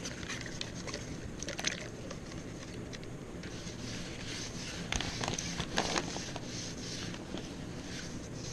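Wet 2500-grit sandpaper rubbed lightly by hand over the matte clear coat of a motorcycle fuel tank: a soft, steady scrubbing, with a few clicks and knocks about a second and a half in and again around five to six seconds.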